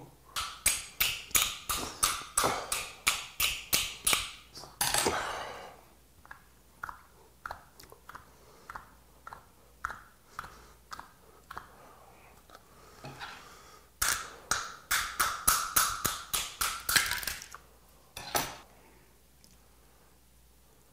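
Rapid sharp clicking knocks from a boiled white whelk shell being worked on to free meat that won't come out, about three to four knocks a second. One run lasts the first few seconds and another comes about two-thirds of the way in. Softer chewing ticks fall between them.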